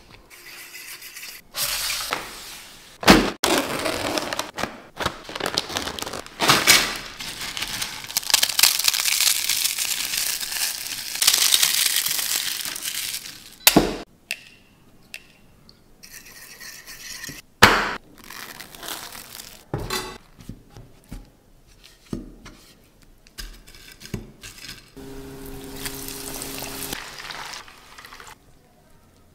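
A string of kitchen sounds: clinks and knocks of utensils on pans, long stretches of steady hissing, and an egg cracked open by hand against its shell about fourteen seconds in.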